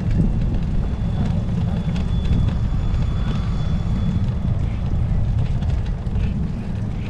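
Steady low rumble of wind buffeting the microphone on a moving bicycle.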